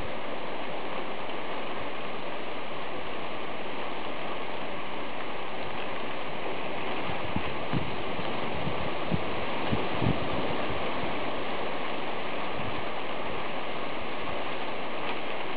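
Heavy rain falling steadily in a thunderstorm, a continuous even hiss, with a few short low thuds around the middle.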